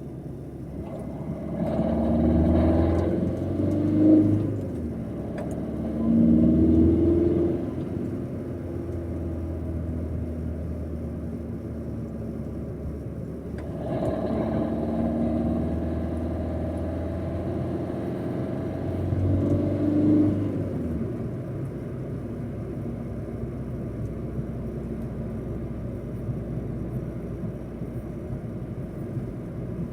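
Opel Corsa D engine running, its speed rising and falling several times: two short rises in the first several seconds, then a longer one through the middle, settling back to a steady low run. The car has a failed turbo that gives no boost.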